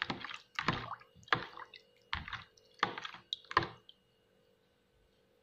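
Spoon stirring a wet mixture of blended kencur, salt, tamarind and hot water in a bowl: about six short clicking, sloshing strokes less than a second apart, stopping just under four seconds in.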